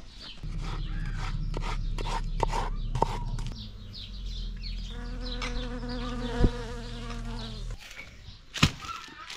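A bee buzzing in flight: a steady drone whose pitch wavers in its later part, cutting off near the end.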